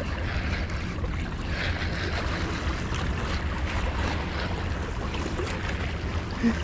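Wind buffeting the microphone over a steady wash of small waves against shoreline rocks.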